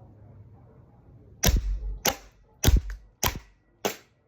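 WE M9 Biohazard Beretta airsoft pistol firing five sharp shots in a steady string, about one every 0.6 seconds, starting about a second and a half in.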